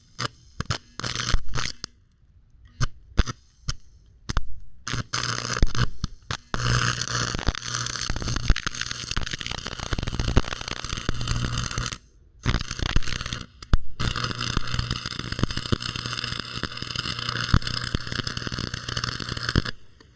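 Stick welder arc crackling and sizzling: several short sputtering strikes of the arc, then long steady weld beads with a low electrical hum, broken twice by brief stops. The welding rods have drawn moisture, which the welder says makes them weld poorly.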